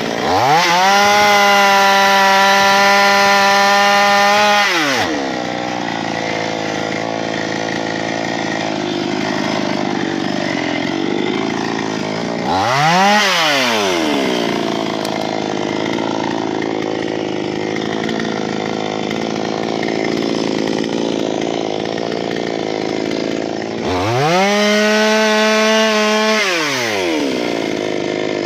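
Chainsaw engine revving up to a high, steady full-throttle note, then dropping to a lower, rougher running note. It revs up briefly again about halfway through and once more near the end.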